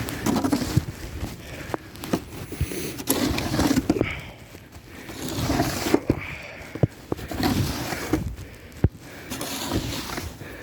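Snow shovel scraping through light fresh snow on pavement in repeated strokes, with sharp knocks as the blade strikes the ground.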